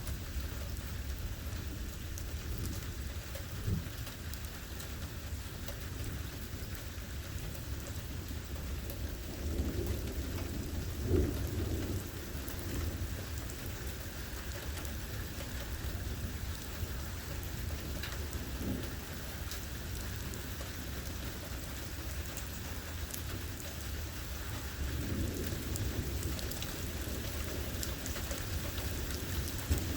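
Steady rain falling during a thunderstorm, with low rumbles of thunder, the strongest about a third of the way in and again near the end.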